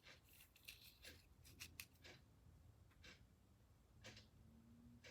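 Near silence with faint, scattered clicks and light rustling, a small cluster in the first two seconds and a few single ticks after: small hand tools being handled and set down.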